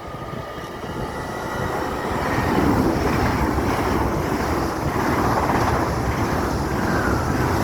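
LNER Class 801 Azuma electric train coming through the station: a rush of train noise that builds over the first few seconds, then holds steady as the train runs past.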